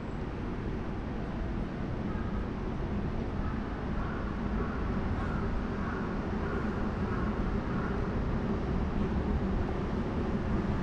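Steady city street traffic noise, a low rumble that grows slightly louder, with a vehicle's engine hum coming through in the middle.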